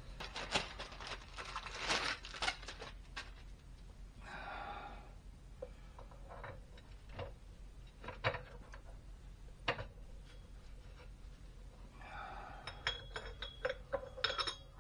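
Scattered light metallic clinks and knocks as a steel wheel hub and wheel bearing are handled and set onto the plate of a hydraulic press. The clinks come in a cluster at the start and again near the end, with a couple of brief scraping sounds in between.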